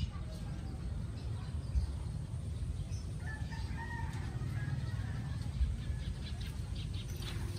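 A rooster crowing faintly a few seconds in, over a steady low rumble.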